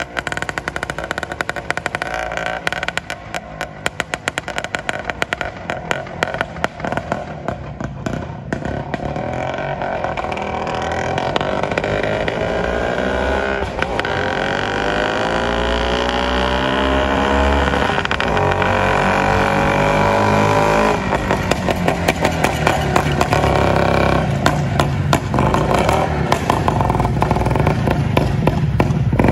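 Greeves two-stroke single-cylinder motorcycle ridden on the street: its rattly exhaust is faint at first, then the revs rise in several sweeps as it accelerates back and gets louder. Near the end it runs slower and close by, with a crackling exhaust.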